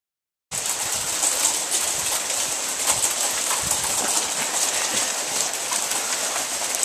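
Hailstorm: a dense, steady hiss of hail and rain coming down, packed with small sharp ticks of hailstones striking. It starts abruptly about half a second in.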